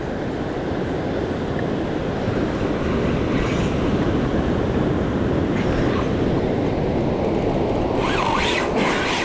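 Steady rush of surf and wind on the microphone, a little louder after a few seconds, with a few brief scrapes near the end.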